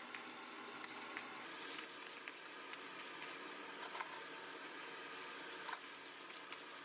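Ghugni cooking in a pan, a steady sizzling hiss with scattered small pops, two of them louder, about four and six seconds in.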